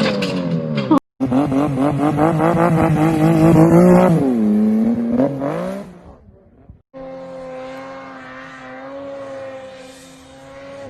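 Snowmobile engines in short clips cut together. Engine revs dip and climb, then it is cut off about a second in; a loud high-revving run drops away about four seconds in and fades. After a short break near seven seconds, a quieter engine runs steadily.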